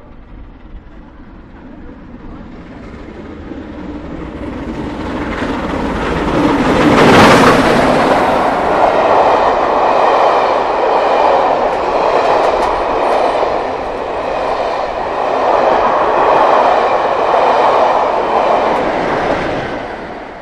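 LMS Royal Scot class three-cylinder steam locomotive 46100 running through a station at speed with its train. It builds up as it approaches and is loudest as the locomotive passes about a third of the way in. The coaches follow, rumbling and clattering over the rail joints in swells, and the sound fades as the train draws away near the end.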